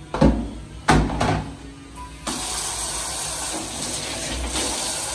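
Two sharp knocks as a plastic basin is handled on a tiled floor. About two seconds in, a wall tap is turned on and water runs steadily from it, splashing into the plastic basin as it fills.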